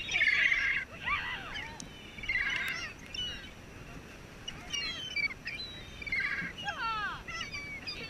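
A flock of gulls calling over one another: sliding, falling cries and fast stuttering call series come in bursts, with a short lull near the middle.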